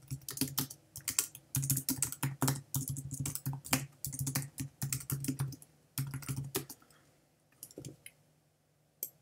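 Typing on a computer keyboard: quick runs of keystrokes as a line of code is entered, thinning to a few isolated key presses near the end.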